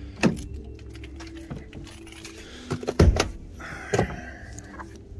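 Ford F-150 driver door open and the cab being handled: a few sharp knocks and clicks, the loudest about three and four seconds in.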